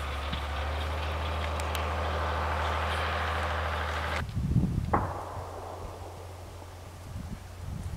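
Steady low hum with a hiss over it, which cuts off abruptly about four seconds in. A few soft thumps and one sharp knock with a brief ring follow.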